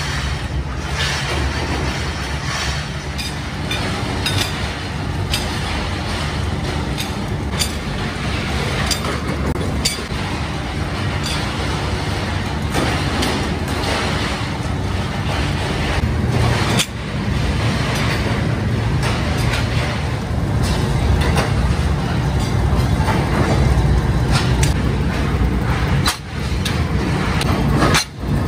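Metalworking factory noise: a steady low machine drone with frequent sharp metal clanks and knocks.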